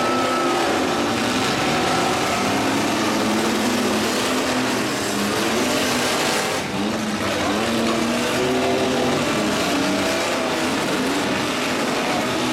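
Several demolition derby trucks' engines running and revving at once, their pitches rising and falling against one another over a continuous rumble.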